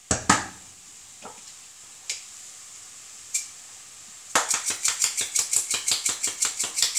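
A few knocks of kitchen utensils, then from about four seconds in a pepper mill being twisted over the pan, a fast even clicking of the grinder crushing coarse peppercorns.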